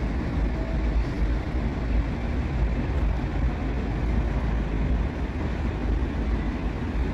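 Steady city street ambience: a continuous low rumble of road and rail traffic, with no single event standing out.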